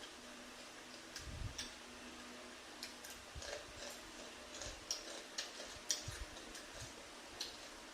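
Faint, irregular sharp clicks, about a dozen spread unevenly, with a few soft low thumps among them.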